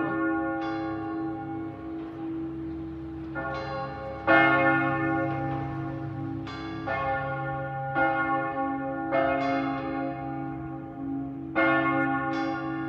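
Large church bells of St Mark's bell tower ringing. Heavy strikes land every second or few seconds, each one ringing on long enough to overlap the next, over a steady low hum. The strongest strike comes about four seconds in.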